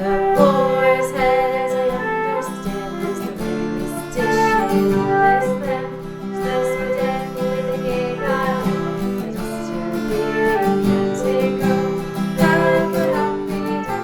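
Acoustic guitar music, plucked and strummed, with a melody line over it.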